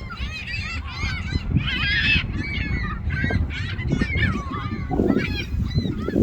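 A flock of gulls calling, many short, high, arching cries overlapping without pause, over a low steady rumble.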